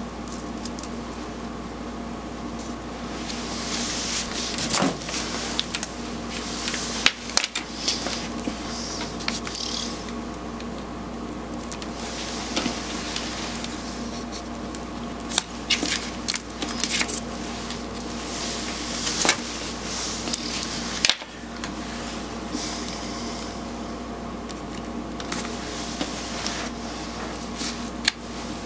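Hands handling alligator-clip leads and wires on a paper-covered board: rustling and rubbing, with scattered sharp clicks as clips are opened and attached, over a steady faint hum.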